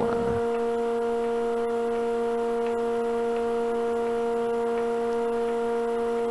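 Steady electric motor hum from a wood lathe with a vacuum chuck running, one unchanging pitched tone with its overtones.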